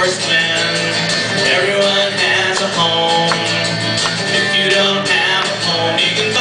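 Live acoustic guitar strumming, playing out the closing bars of a folk-pop song.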